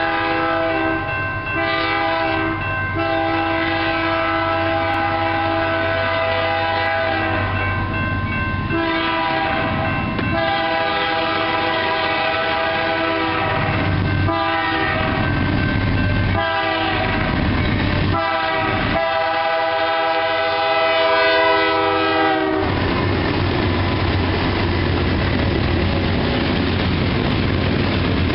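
BNSF diesel locomotive's multi-chime air horn blowing a series of long blasts with short breaks between them, as the grade-crossing warning. About three quarters of the way through it cuts off, leaving the steady rumble of the locomotives and loaded grain hopper cars rolling past.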